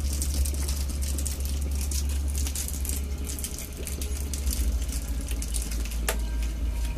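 Water bubbling and gurgling in a bubble lamp's water-filled glass globe as air is pushed up through a tube, over a steady low hum. A single sharp click about six seconds in.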